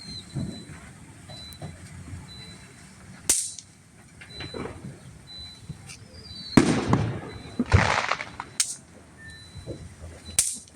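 Small consumer fireworks going off: about five sharp bangs a few seconds apart, the loudest pair in the middle each followed by a short rushing crackle.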